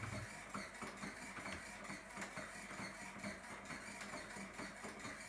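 Small hobby servo motor rocking an acrylic waveboard back and forth, making a quiet mechanical whir with many small irregular clicks.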